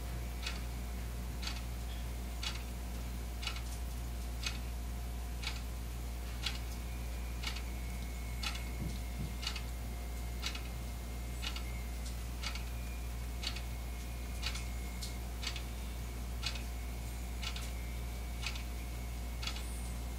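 A clock ticking steadily about once a second, over a steady low hum.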